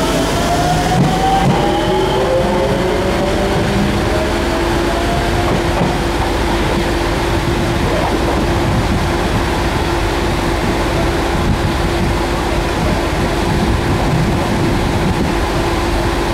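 JR Shikoku 121-series electric train moving through the station, with a steady rumble of wheels on rail. Its traction motor whine rises in pitch over the first five seconds or so, and a steady hum runs on underneath.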